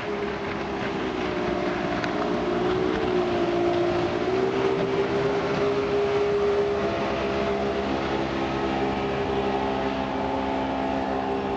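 Mercury 225 hp direct-injection outboard running at speed, pushing the boat along the river; a steady engine tone that dips a little in pitch about three seconds in and then holds, over a steady rushing noise.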